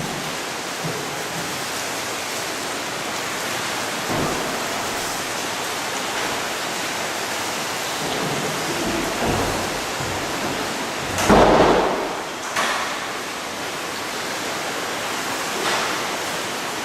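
Steady rushing noise of floodwater, with a brief louder surge about eleven seconds in.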